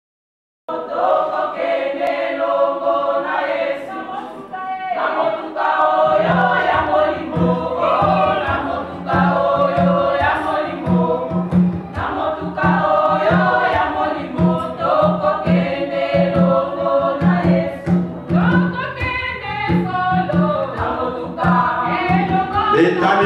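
Church choir singing a gospel song, starting suddenly just under a second in; a steady low beat from the band joins about six seconds in.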